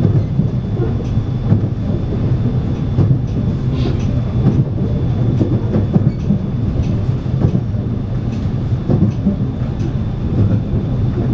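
Interior sound of a 521 series electric multiple-unit train running along the line: a steady low rumble of wheels on rail, with occasional short clicks and a faint high whine.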